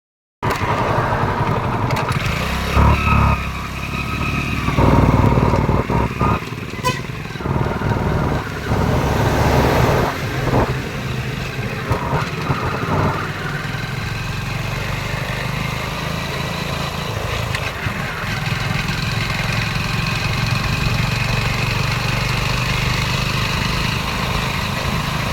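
Street traffic noise: vehicle engines, motorcycles among them, running and passing, with a steady low rumble and louder passes in the first half.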